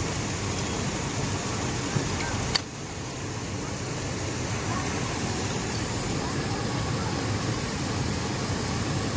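Steady mechanical din of industrial sewing machines running, with a sharp click about two and a half seconds in, after which it runs a little quieter.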